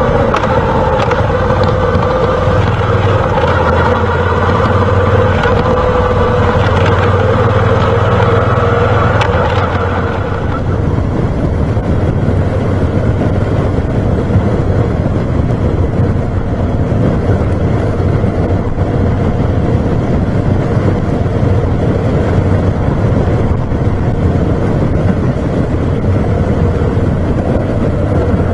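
Moto Guzzi V7 Special's 750 cc V-twin engine running under way, mixed with wind and road noise. For the first ten seconds its note rises and falls with the throttle; then the sound changes suddenly to a steadier, duller run.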